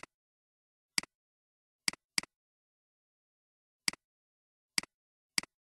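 Computer mouse button clicking seven times at irregular intervals, each click a quick press-and-release pair of ticks, with silence in between.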